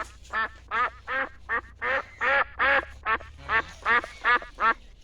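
Domestic duck quacking loudly, a run of about a dozen quacks at two or three a second.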